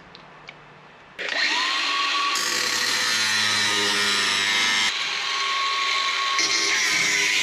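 Cordless angle grinder with a thin cut-off wheel spinning up about a second in, then cutting through sheet steel with a steady high whine and hiss. The note dips briefly partway through as the wheel bites.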